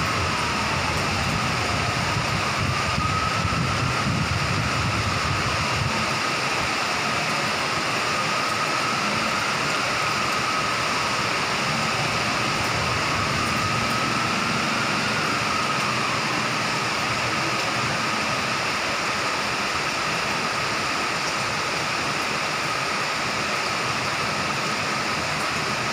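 Heavy rain pouring steadily, with a distant siren wailing slowly up and down over it. A low rumble underneath fades out about six seconds in.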